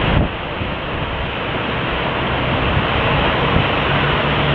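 Distant jet engines of a four-engined Boeing 747 running as it taxis onto the runway: a steady noise with a low, wavering rumble beneath it.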